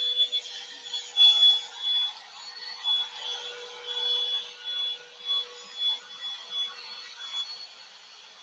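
Revlon One Step Hair Volumizer hot-air brush running, a steady motor whine and rush of air that swells and dips again and again as the brush is worked through a section of hair.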